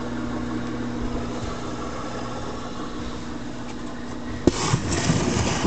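Motor-driven rotating drum screen for worm castings running with a steady hum. About four and a half seconds in there is a sharp knock, followed by scraping and rustling as compost is pushed along the wooden feed bed into the screener.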